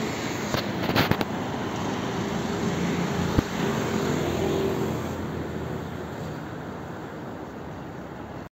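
Street traffic noise: a motor vehicle running close by, with several sharp clicks or knocks in the first few seconds. The noise fades gradually through the second half.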